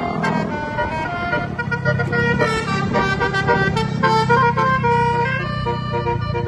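Bus basuri telolet horn playing a melody of stepping, multi-note tones over the bus's running engine.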